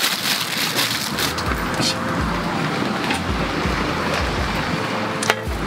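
Steady sizzling hiss of a foil-wrapped packet of salmon and vegetables cooking on a griddle over a portable gas stove, with some low irregular thuds under it.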